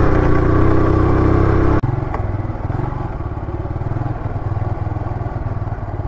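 Motorcycle engine running under way. About two seconds in the sound drops abruptly and the engine carries on more quietly with an even, rapid pulsing beat.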